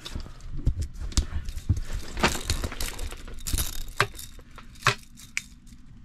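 Steel tape measure being pulled out and handled: a run of sharp clicks and rattles from the blade and its case, dying down near the end.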